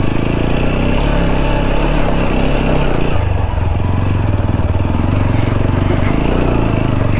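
Single-cylinder TVS Apache RTR 200 4V motorcycle engine running while the bike is ridden, its note changing about three seconds in.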